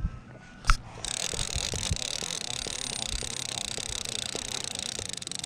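Line-counter trolling reel being cranked to retrieve line: after a single sharp click just under a second in, a steady gear whir with faint, regular ticking from the turning handle.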